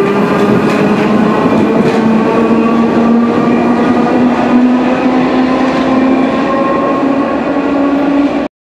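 Sprague-Thomson metro train pulling away and accelerating: its traction motors whine with a pitch that rises slowly over the running noise of wheels on rails. The sound cuts off abruptly near the end.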